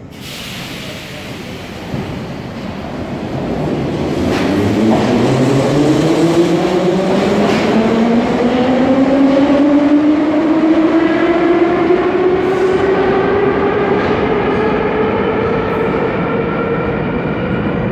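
Ezh3/Em-508T metro train pulling out of the station, its traction motors whining and rising steadily in pitch as it gathers speed, over the rumble of the wheels. A short thud comes about two seconds in.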